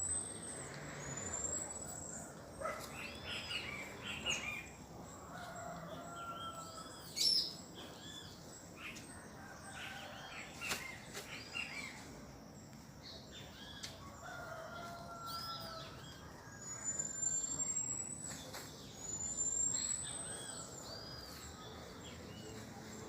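Many small songbirds chirping and calling together in a dawn chorus, with repeated short chirps and thin high whistles. A rooster crows faintly twice, about a third of the way in and again past the middle.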